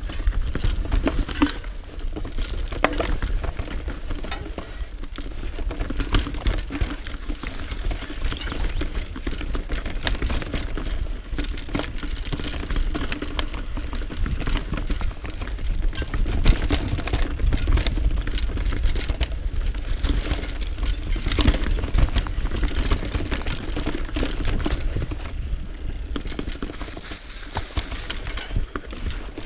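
Mountain bike riding over a rocky forest trail: tyres crunching over stones and gravel, with the bike rattling and knocking over the bumps. A steady low rumble of wind buffets the camera microphone throughout.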